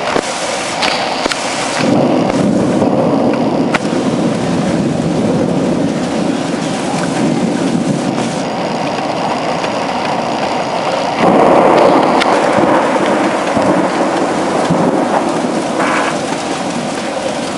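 Thunderstorm: heavy rain with rolling thunder that swells about two seconds in and again louder around eleven seconds.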